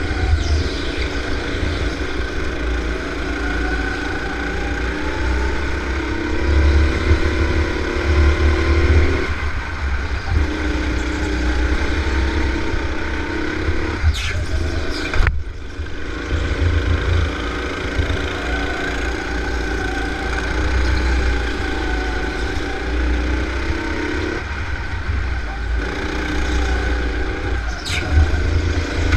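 Go-kart engine running under racing throttle, its pitch rising and falling, over a heavy low rumble. A couple of brief clicks come about halfway through and near the end.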